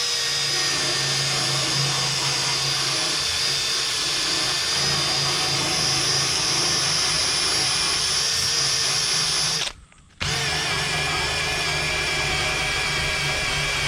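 Electric drill spinning a bristle paint-stripping brush against an aluminium boat hull, a steady high whine with a rough scrubbing noise as old paint is cleared off the metal. The sound drops out for about half a second near ten seconds in, then carries on the same.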